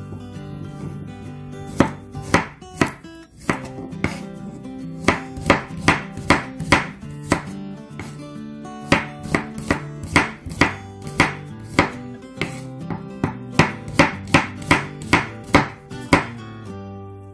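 Chef's knife slicing garlic cloves on a wooden cutting board: a run of sharp knife taps against the board, about three a second, pausing briefly a few seconds in. Quiet guitar background music plays underneath.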